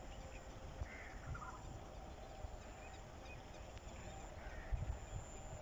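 Faint open-air ambience with a few short, distant bird calls over a low rumble.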